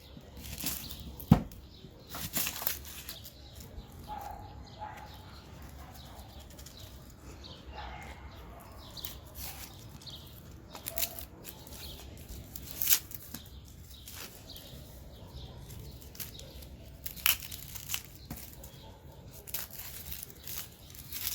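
Dry onion skin being cut into and peeled off with a folding knife: papery crinkling and tearing, with scattered clicks and a sharp knock about a second in.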